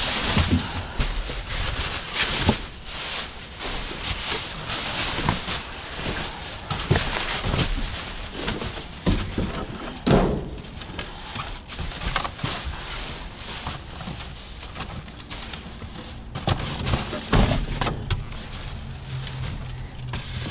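Plastic trash bags crinkling and rustling as they are grabbed and shifted, with sharp knocks and scrapes of boxes and packaging among them.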